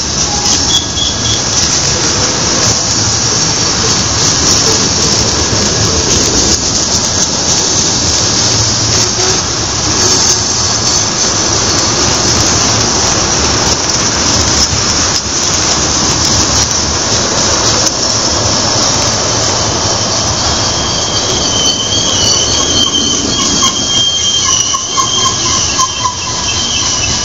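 BNSF manifest freight train's cars rolling past close by, a loud steady rumble and rattle of wheels on rail. In the last six seconds the wheels squeal against the rails in several high, wavering tones.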